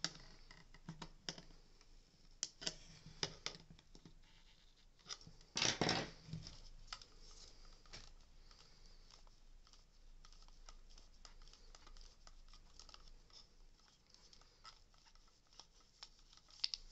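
Plastic clicks and scrapes as a screwdriver and fingers lever the circuit board and motor of a Dyson V8 vacuum up out of its plastic housing, with a louder scrape about six seconds in.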